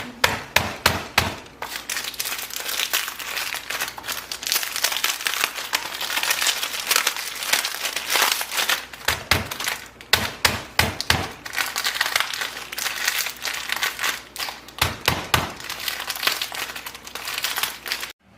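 Dry crunchy snacks (corn chips and crackers) being crushed into crumbs for a breading: dense crackling and crinkling with many sharp cracks, thickest in the first second or so and in clusters later on.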